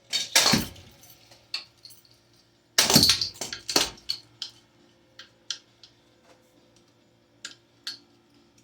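A 2009 Hampton Bay Littleton ceiling fan being smashed: two loud crashes, one right at the start and one about three seconds in, each followed by clinking and rattling of loose pieces that thins out toward the end.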